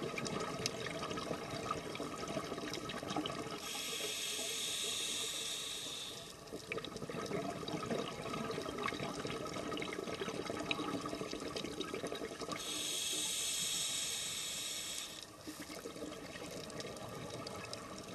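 Underwater breathing of a scuba diver through a regulator: two long hisses about nine seconds apart, with bubbling and steady crackling and clicking of the water between them.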